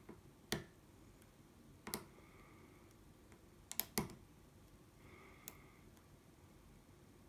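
Sharp little metallic clicks from a hook pick working the pins of an ASSA 700 pin-tumbler lock held under heavy tension: about five separate clicks, irregularly spaced, with two in quick succession around four seconds in.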